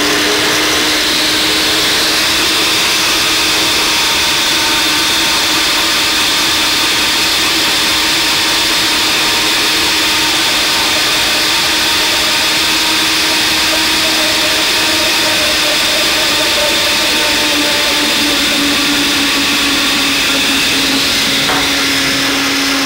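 A 600-watt Cuisinart countertop blender running steadily at speed, whipping eggs while oil is drizzled in to emulsify mayonnaise. Its motor hum drops slightly in pitch about three-quarters of the way through.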